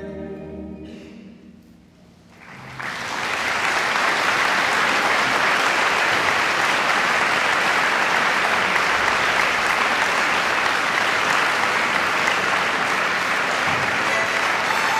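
The last held chord of the music dies away, and about two and a half seconds in the audience breaks into applause, swelling within a second or so to steady, full clapping.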